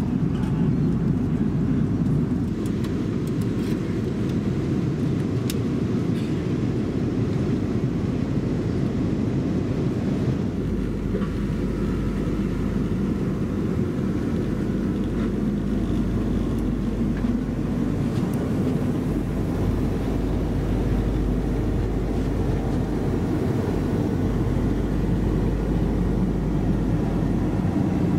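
Steady in-flight cabin noise of an Airbus A330-300: a constant low rush of airflow and engines. Its low hum shifts slightly about ten seconds in.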